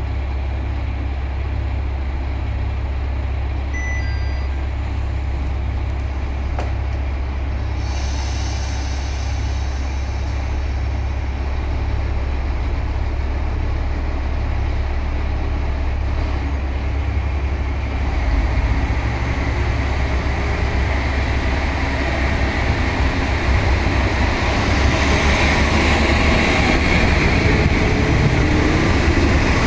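Kashima Rinkai Tetsudo Class 6000 diesel railcar's engine running at idle with a steady low rumble, with a couple of short high beeps about four seconds in and a hiss of air starting about eight seconds in. About eighteen seconds in the engine note steps up as the train starts to pull away, and engine and wheel noise build louder toward the end.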